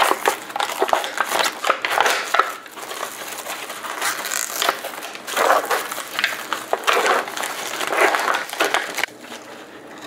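Thin plastic film being peeled off a compartmented plastic snack tray of crackers, cheese and ham, crinkling and crackling in irregular bursts that die down near the end.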